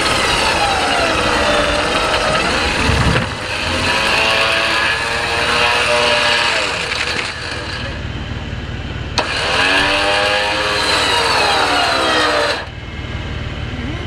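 Off-road 4x4 engine revving hard in repeated surges, its pitch falling and rising, while pulling on a recovery rope; the revving cuts off suddenly near the end.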